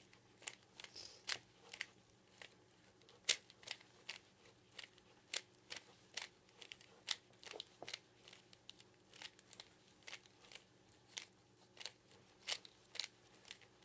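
Plastic Rubik's Cube layers being turned by hand: a run of sharp clicks, about two a second and unevenly spaced. This is the last-layer corner algorithm being repeated to finish the solve.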